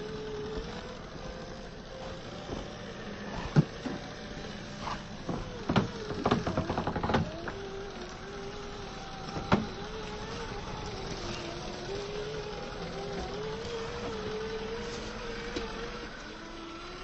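RC crawler's electric motor and drivetrain whining steadily, the pitch wavering as the throttle changes, with sharp knocks and a quick run of clicks as the truck climbs over rock.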